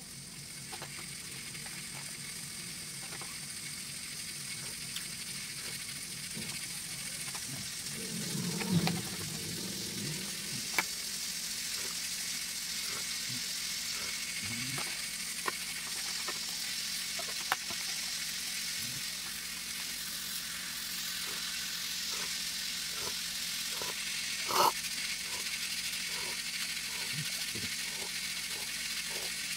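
Quiet eating and drinking: a few short sharp clicks and sips from a mug over a steady soft hiss.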